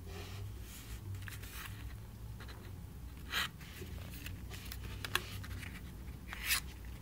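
Faint handling noises of a cardboard promotional sound card: a few brief scrapes and rustles as it is picked up off the desk and turned over, with a small sharp click about five seconds in.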